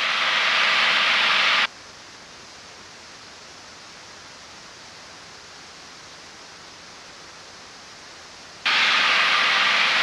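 Steady rushing cabin noise of a single-engine light aircraft in cruise flight. About two seconds in it drops abruptly to a faint hiss, and it comes back just as abruptly about a second before the end.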